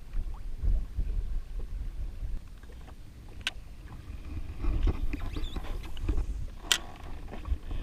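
Water lapping and slapping against the hull of a drifting jet ski, under a low rumble of wind on the microphone, with two sharp clicks a few seconds apart.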